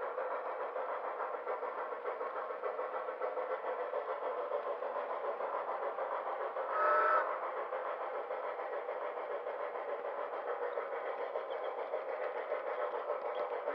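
HO-scale model freight train running on track, a steady mechanical rolling hum and clatter of wheels and motor picked up by a camera riding on a flat car just behind the locomotive's tender. About seven seconds in, a short whistle-like tone sounds for about half a second.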